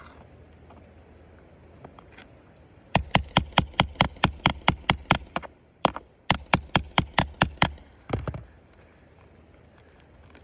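A hammer striking metal in two quick runs of about six blows a second, each blow ringing sharply, followed by a single duller knock near the end.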